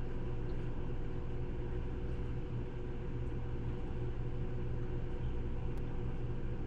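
Steady low mechanical hum with a light hiss from running aquarium equipment.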